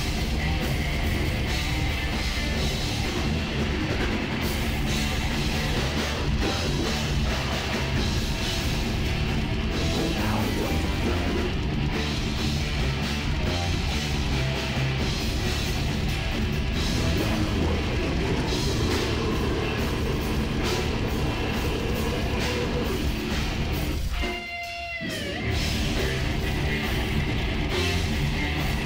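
Metal band playing live: distorted guitars, bass and drums at full volume. About three-quarters of the way through, the band stops for about a second while a single held note dips in pitch, then the full band comes back in.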